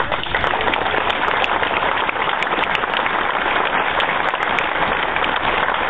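Crowd applauding: a steady wash of many hands clapping.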